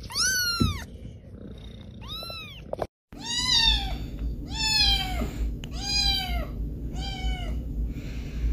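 An orange tabby kitten gives two high-pitched meows. Then a grey-and-white cat meows repeatedly, about once a second, in lower, longer calls over a low steady rumble.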